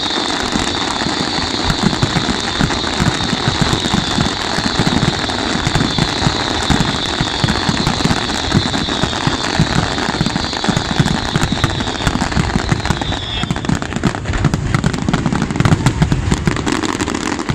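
Fireworks finale barrage: a dense run of rapid bangs and crackles from many shells bursting at once, with a steady high-pitched hiss that fades out about thirteen seconds in.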